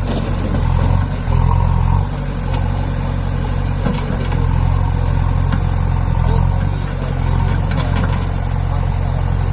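JCB 3DX backhoe loader's four-cylinder diesel engine running steadily under load as the backhoe arm digs, revving up briefly about a second and a half in.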